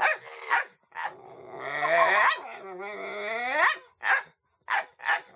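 A dog barking at a cat: a few short sharp barks, with two longer drawn-out growling cries rising in pitch in the middle.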